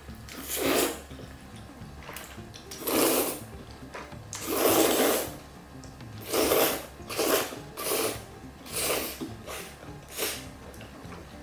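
Close-miked slurping of jjajangmyeon noodles in black bean sauce: about eight slurps of varying length, the longest lasting about a second near the middle.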